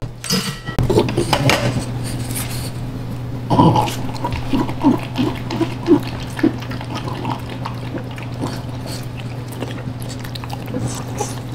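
French bulldog feeding at its stainless steel bowls: short, irregular mouth and bowl sounds over a steady low hum.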